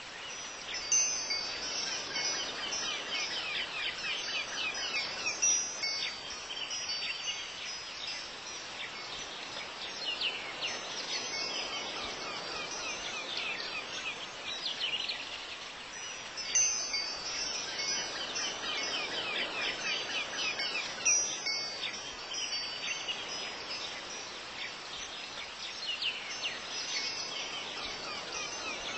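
Looped ambient sound bed of bright chiming tones over a soft high shimmer, repeating about every fifteen seconds.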